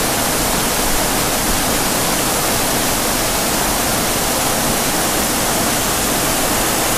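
Loud, steady rush of a waterfall, even and unbroken throughout.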